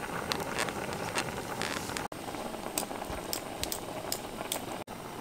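A pot of doenjang soup boiling: a steady bubbling hiss with scattered small pops.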